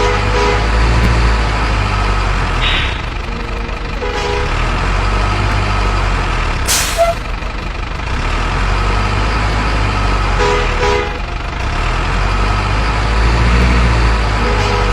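Truck engine running with a steady low rumble, several short horn toots, and a sharp hiss about seven seconds in.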